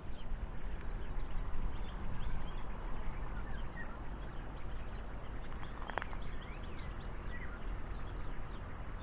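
Small birds chirping and twittering in the trees, many faint short calls scattered throughout, over a steady low hum of distant road traffic. One brief sharp click about six seconds in.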